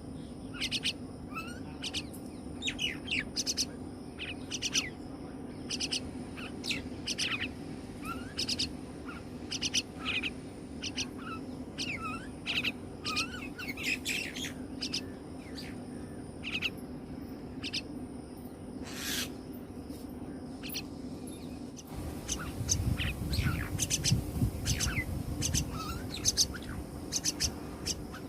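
Common myna chicks calling over and over in short, high, rapid chirps. About three quarters of the way in, a low rumble joins and the sound gets louder.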